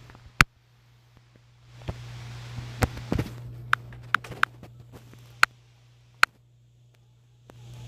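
Sharp, irregular clicks, about nine in all, of a finger tapping on a phone's touchscreen, over a steady low hum.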